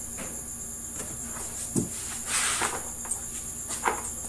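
Steady high-pitched chirring of crickets in a night-time insect chorus. Over it come a few short knocks and a brief rustle of handling noise, with the sharpest click near the end.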